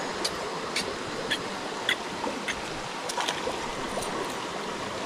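Steady rush of a flowing jungle stream, with sharp ticks scattered through it about every half second.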